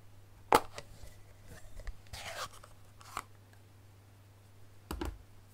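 Plastic stamp ink pad case being handled and opened: a sharp snap about half a second in, a short rustle near two seconds, then a lighter click and a couple of knocks near the end as it is set down.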